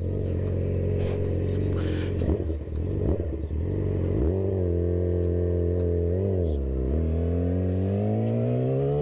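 Yamaha R6 inline-four sport bike engine running through a Leo Vince GP slip-on exhaust while being ridden. The engine note rises sharply about four seconds in and dips briefly between six and seven seconds. It then climbs steadily in pitch to the end as the bike accelerates.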